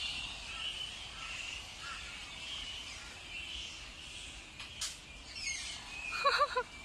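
A colony of fruit bats chattering and squealing in the trees, a steady high chatter that runs without a break. A short click comes a little before the end, and a brief wavering call follows near the end.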